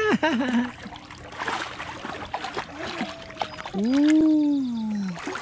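Pool water splashing and sloshing close by for the first few seconds, then a long wordless vocal sound that rises and falls in pitch, lasting over a second, about four seconds in.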